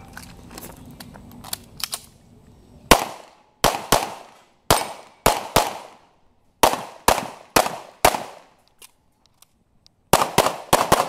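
CZ Shadow pistol firing about fourteen shots, mostly in quick pairs with short pauses between, ending in a fast string of four, each shot with a short echoing tail. The shooting starts about three seconds in, after a few faint clicks.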